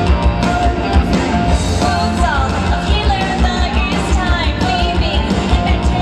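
Live amplified rock song: a woman singing into a microphone over a rock backing with a pounding bass beat, her sung lines sliding up and down in pitch.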